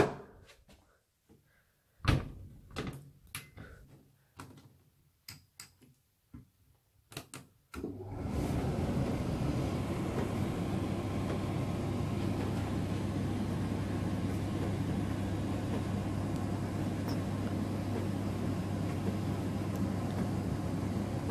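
Miele W1 front-loading washing machine: a series of clicks and knocks, the loudest at the start and about two seconds in. About eight seconds in, a steady low hum with a rushing noise starts and holds at an even level.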